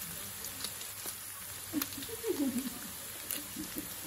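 Pork pieces frying in oil in a steel wok: a steady sizzle with scattered small pops. A brief, faint voice-like sound comes about two seconds in.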